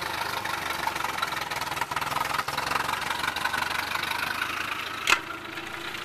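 3.0-litre MerCruiser four-cylinder sterndrive engine idling steadily, run out of the water on a garden hose. A single sharp knock stands out about five seconds in.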